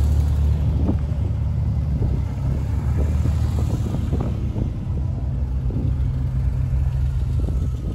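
DeLorean DMC-12's rear-mounted V6 running with a low, steady hum as the car moves off and drives slowly past.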